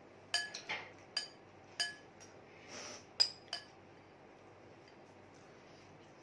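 Metal spoon clinking and scraping against a glass bowl: about eight sharp, ringing clinks in the first three and a half seconds, with a short scrape among them.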